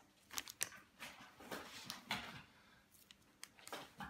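Faint crinkling and rustling of a plastic piping bag being handled and squeezed, with a few light clicks.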